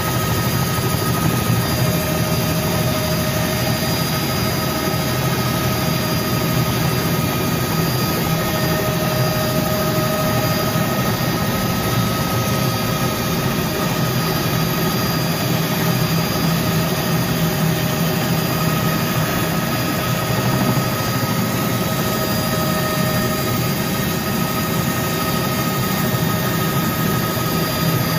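Helicopter engine and rotor running steadily, heard from inside the cabin: a dense low drone with a steady high whine over it.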